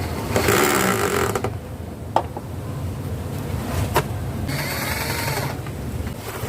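Woodworking tool noise: two bursts of about a second each, with two sharp knocks between them, over a steady low rumble.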